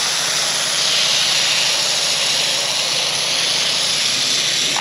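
Fully pumped IK Foam Pro 2+ hand-pump foam sprayer hissing steadily as it sprays foam out of its nozzle onto a car panel. The hiss stops abruptly at the end.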